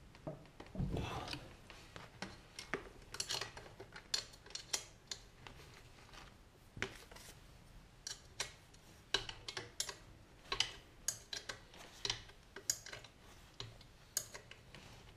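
Irregular small metallic clicks and taps, with some rustling about a second in, from hands handling the pit bike's rear brake caliper, its braided hose and small parts.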